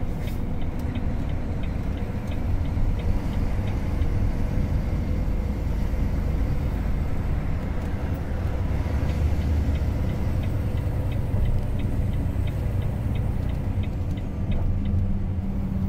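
Car driving on the highway, heard from inside: a steady low rumble of road and engine noise. Twice there is a stretch of fast, evenly spaced ticking.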